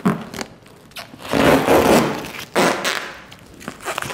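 Protective plastic transport film being peeled off a car's paint and crumpled in the hands: rustling, crinkling plastic in a few noisy bursts, the loudest about a second and a half in.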